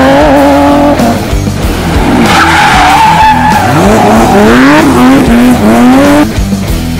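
Race-car sound effect over rock music: an engine revving up through the gears, its pitch climbing, dropping and climbing again several times, with tyre squeal. It cuts in suddenly and stops abruptly about six seconds in.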